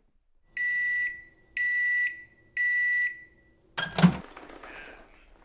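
Three electronic beeps, evenly spaced about a second apart, then a single loud bang near the end.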